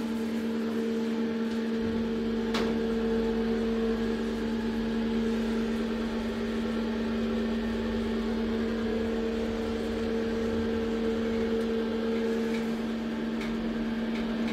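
DEVE hydraulic elevator travelling up: a steady hum from the hydraulic pump, with a low rumble that comes in about two seconds in as the car gets moving, and a single click shortly after.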